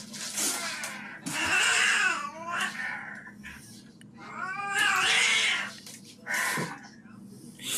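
Domestic cat yowling in two long, wavering calls, the first about a second and a half in and the second about four and a half seconds in, with scuffling noise between them as it scrabbles at a window.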